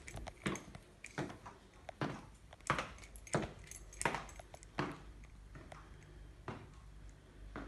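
Footsteps of someone walking at a steady pace across a wooden floor, about three sharp steps every two seconds.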